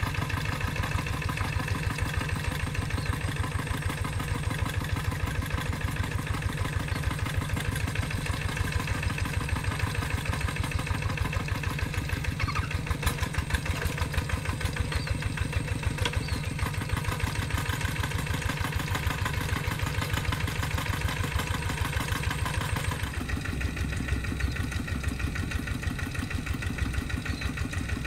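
Quick G3000 two-wheel hand tractor's single-cylinder diesel engine running with a steady, fast, even chugging. Its tone changes suddenly about three-quarters of the way through.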